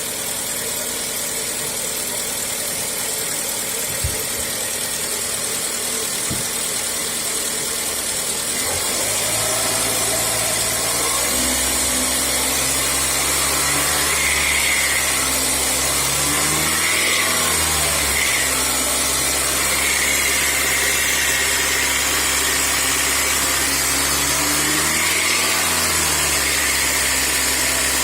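Hyundai/Kia G4KE 2.4-litre four-cylinder engine running, revved up and let fall back twice. The owner hears a knock around 2000 rpm as the load drops off, which he takes for worn connecting rod bearings.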